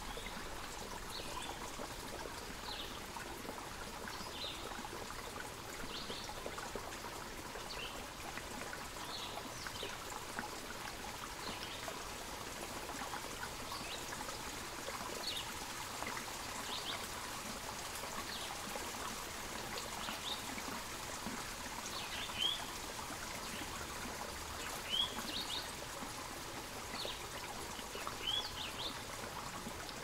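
Water trickling steadily down a rock face in a thin waterfall, with short bird chirps again and again, a few louder ones in the second half.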